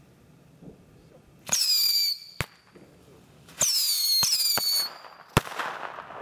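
Firework battery firing whistling shots: three short whistles that fall in pitch and then hold, each followed by sharp bangs. The loudest bang comes about five seconds in, followed by a crackling hiss.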